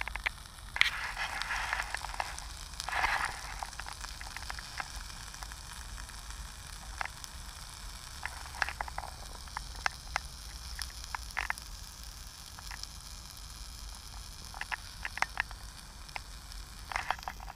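Diced potatoes and onions frying in a pan hung over a wood campfire: a steady sizzle with scattered pops and crackles, and louder hissing bursts about one and three seconds in.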